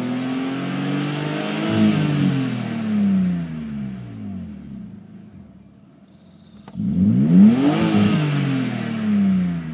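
BMW E36 328i's 2.8-litre straight-six free-revving. The engine speed climbs to a peak about two seconds in and sinks back to idle. After a sharp click, a quick second rev comes about seven seconds in, falls away, and is followed by a smaller blip near the end.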